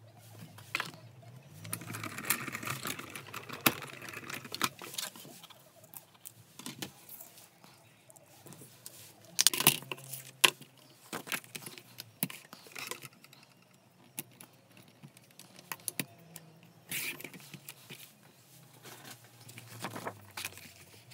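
Paper craft handling on a tabletop: card, plastic die-cutting plates and a sliding-blade paper trimmer being moved and set up, making scattered clicks, knocks and paper rustling. A longer scraping rustle comes about two seconds in, and the loudest cluster of clicks about nine to ten seconds in.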